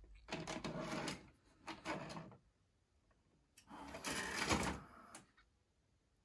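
The front-loading cassette mechanism of a 1984 Philips VR 6520 VHS recorder (a rebadged Panasonic NV-370) draws in a cassette and seats it, in two short runs of mechanical whirring and clunking. About three and a half seconds in, a longer, louder run of whirring and clicks follows as the transport is started from the front-panel buttons.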